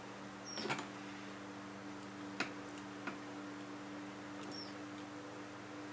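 Faint clicks of a wire and a blue plastic butt connector being handled and fitted on the end of the cord wire, with a cluster of clicks near the start and two single clicks later, plus two short, high, falling squeaks, over a steady electrical hum.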